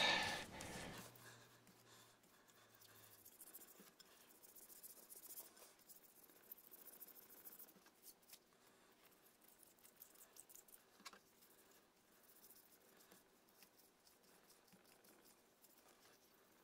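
Faint scratching of fine 6000-grit Micro-Mesh abrasive rubbed by hand over the edge of a cold-glaze repair on a glazed ceramic plate, in irregular strokes, while the repair is polished toward a shine.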